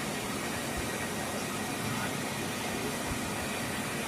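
Geminis CNC turret lathe turning a steel train axle: a steady machining noise from the spinning shaft and cutting tool, with a faint thin steady whine.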